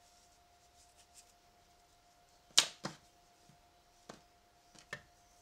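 A few sharp knocks of tools handled and set down on a wooden tabletop: a loud one about two and a half seconds in, followed at once by a second, then two lighter taps near the end.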